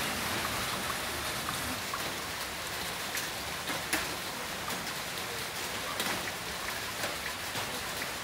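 Heavy rain falling steadily, a continuous hiss dotted with many sharp drop impacts, one louder about four seconds in.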